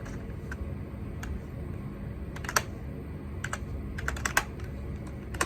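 Computer keyboard being typed on slowly: scattered key clicks at irregular intervals, a few coming in quick little runs.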